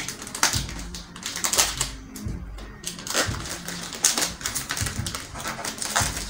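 A biscuit pack's wrapping being handled and picked at with the fingers to open it, giving irregular crackles and clicks.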